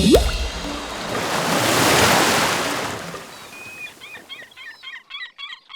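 A rushing noise swells up and dies away over about three seconds, like surf washing in. It is followed by a quick run of high, repeated chirps like small birds calling.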